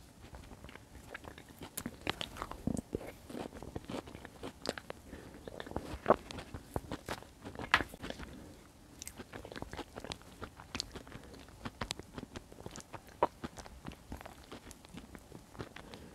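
Close-miked eating sounds: chewing of soft white beans in tomato sauce taken up with bread, with irregular wet smacks and clicks from the mouth.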